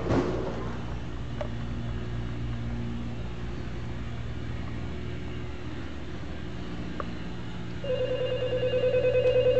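Halloween prop rotary telephone ringing with a pulsing, trilling ring that starts near the end, over a steady low hum.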